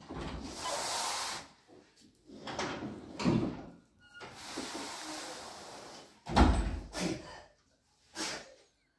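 Close handling noise: a run of rustling swishes as hands move the necklace about, with a heavier bump just past six seconds.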